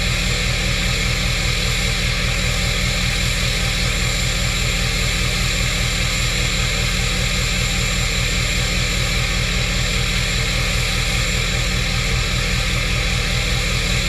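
Ford F-350's 6.7 L Powerstroke V8 turbodiesel idling steadily through a newly installed down-pipe-back 5-inch exhaust with the emissions equipment deleted. A low, even pulsing with no revs.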